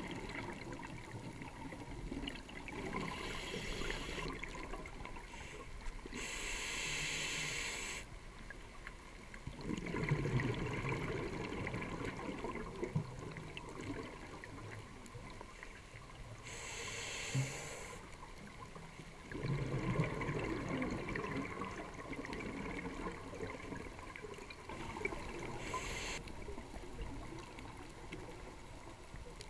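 Scuba diver breathing through a regulator underwater: three hissing inhales, two of them followed by a louder gush of bubbling exhaust, over a steady underwater wash.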